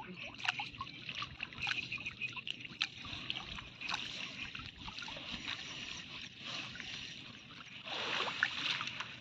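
Shallow creek water sloshing and trickling around a fine-mesh fishing net as it is gathered in, with many small splashes and a louder slosh near the end.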